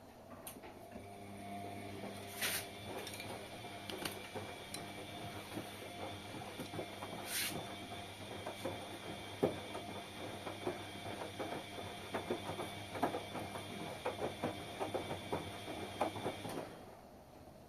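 Washing machine drum turning with a load of laundry during a wash cycle: the motor hums and whines steadily under many small clicks and rattles. It stops abruptly shortly before the end.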